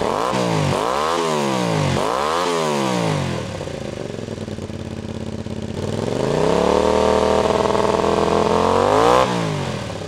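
Honda VTR250 V-twin revved through a cheap universal slip-on silencer with a second inner silencer baffle pushed inside it to quiet the exhaust. It is blipped twice quickly and settles to idle. Then it is held at higher revs for about three seconds and drops back near the end.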